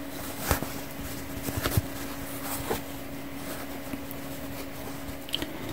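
Sewn cap fabric rustling and crinkling in the hands as it is turned right side out, a few soft crinkles over a steady low hum.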